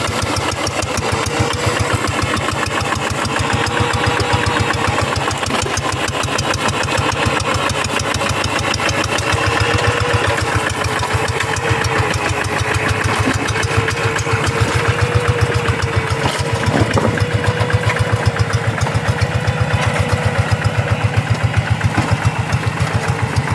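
Hand tractor's single-cylinder diesel engine running steadily, with a rapid, even beat of firing pulses.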